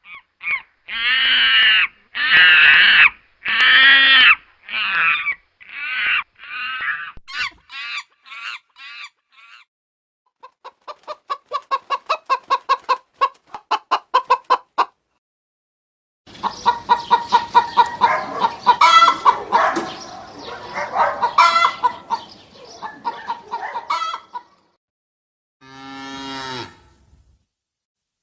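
Chickens clucking and calling: first a series of loud drawn-out calls that grow shorter and quicker, then rapid clucking at about four a second, then a stretch of dense overlapping cackling.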